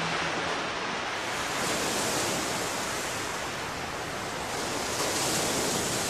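Steady rushing noise of sea water and waves picked up by a waterproof camera while snorkelling.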